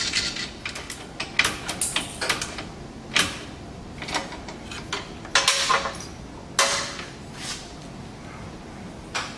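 Hand-tool work: irregular clicks, clatters and knocks of a ratchet wrench, nuts and metal and plastic parts as a pump is fastened onto a heat exchanger, with a cluster of louder clatters around the middle.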